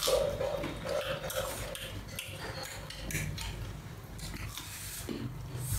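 Close-up eating sounds: chewing and wet mouth smacking, with short clicks of chopsticks against a rice bowl.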